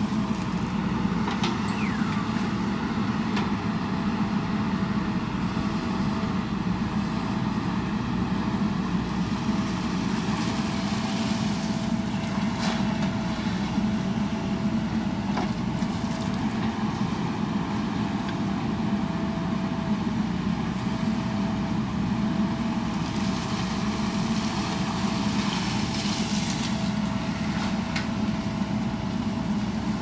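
JCB 3DX backhoe loader's diesel engine running steadily while the backhoe arm digs and swings, with a steady high tone over the engine. A few sharp knocks come through around the middle.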